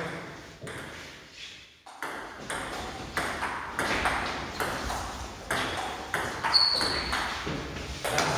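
Table tennis rally in doubles: the celluloid-type ball clicking off bats and table in quick alternation, about two hits a second, with one brief high squeak about two-thirds through.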